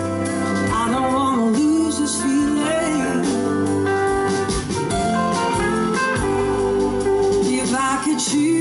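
Live blues-rock band playing, with electric guitar and keyboards under a woman's singing voice.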